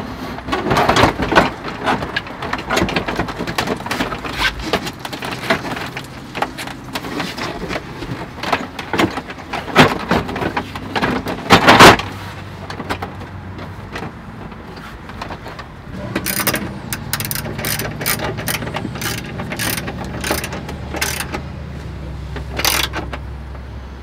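Hand work on the Chevy Express van's engine cover and plastic dash console as they are refitted and screwed down: irregular clicks, knocks and plastic rattles, with one sharp knock about halfway through. In the second half comes a run of quick clicks over a low steady hum.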